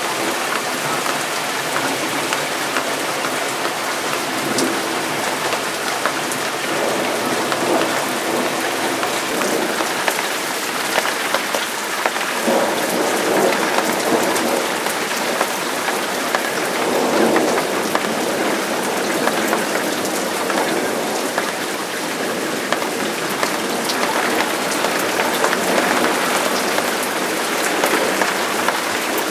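Heavy thunderstorm rain pouring down steadily, with drops close by landing in sharp ticks. A rumble of thunder swells up in the middle.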